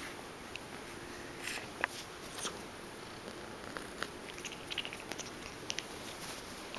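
Young gray tabby kitten purring close up, with scattered soft clicks and rustles as its fur and paws brush against the camera.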